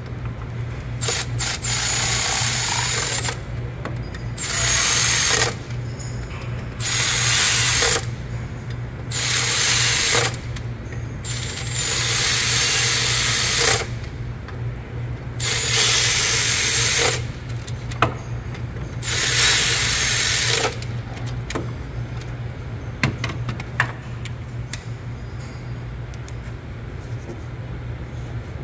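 Cordless electric ratchet running bolts down on a supercharger bracket in seven bursts of one to two seconds each, over a steady low hum. A few sharp clicks follow in the quieter last third.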